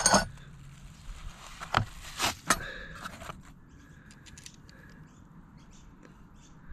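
Cardboard box and plastic packaging rustling, with a few sharp clicks and knocks in the first three seconds as a metal drain-jetting nozzle on two hoses is lifted out. After that it goes quiet apart from faint, scattered bird chirps.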